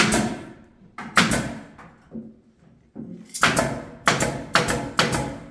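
A series of sharp knocks: one at the start and one about a second in, then after a pause a steady run of about two knocks a second.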